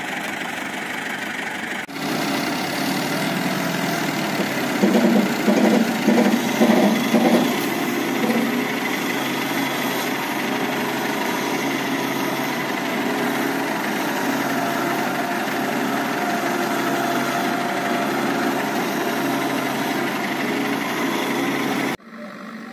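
Diesel engines of the heavy cranes running under load as a second crane tows a hydra crane stuck in deep mud: a steady engine rumble with a louder, uneven stretch about five to seven seconds in. The sound steps up abruptly about two seconds in and drops sharply near the end.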